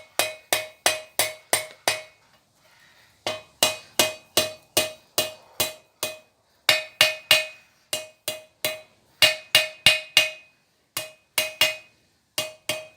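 Hand hammer striking hot steel on an anvil, about three blows a second in runs with short pauses, each blow with a bright ring from the anvil, as the tip of an S hook is rolled over.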